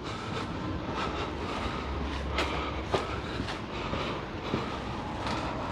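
Footsteps of someone walking on hard ground, a few steps about half a second apart, over a steady low rumble.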